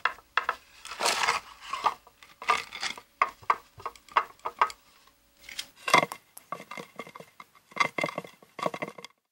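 Foley sound effect being performed with wooden boards: short, irregular scrapes and knocks of wood rubbed and struck against wood, with a brief pause a little past halfway before more strokes.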